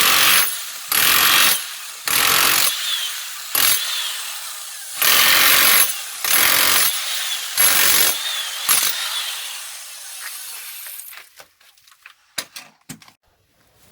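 Electric chipping hammer run in about eight short bursts, breaking up concrete or tile to get at a leaking PPC water pipe. It stops about three quarters of the way through, and a few light knocks follow.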